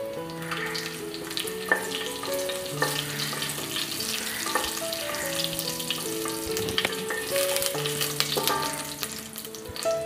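Cumin seeds sizzling and crackling in hot ghee in a stainless steel pressure cooker, with a spatula stirring and scraping the pan, under a gentle background melody.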